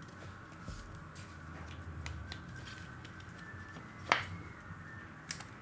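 Quiet handling of trading cards, with faint scattered clicks and one sharper click about four seconds in.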